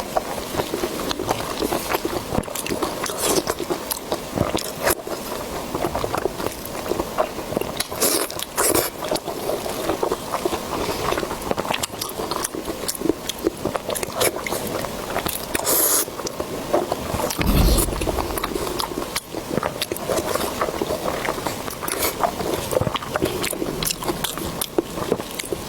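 Close-miked eating: a person biting and chewing food with mouth noises, a dense run of short wet clicks and smacks throughout. A low thump about two-thirds of the way through.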